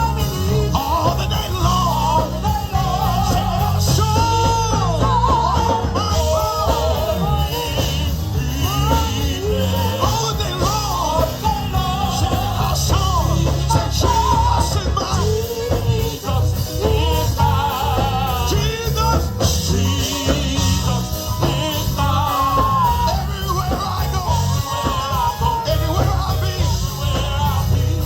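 Live gospel band of organ, drums and bass guitar playing fast Pentecostal praise music, with heavy bass and bending, sliding melodic runs over a continuous groove.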